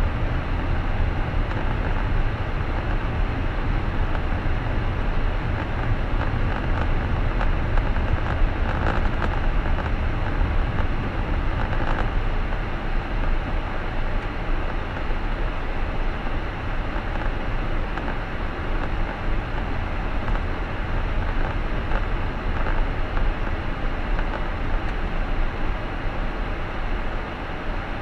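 A car driving along: a steady rumble of road and engine noise, heaviest in the low end, with no marked changes.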